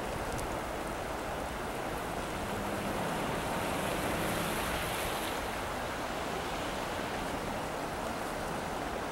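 Wind blowing, a steady rushing noise that swells a little in the middle.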